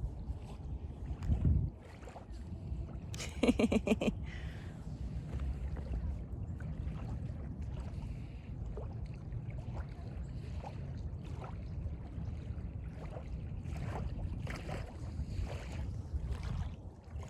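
Wind rumbling on the microphone outdoors by open water, with one short pitched call or voice about three and a half seconds in.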